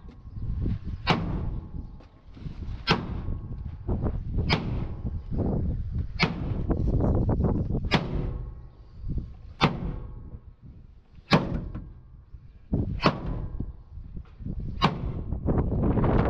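Hammer blows on the sheet-steel floor and panels of a damaged truck cab, struck at a slow, steady pace of about one every second and a half, nine strikes in all, over a low background rumble.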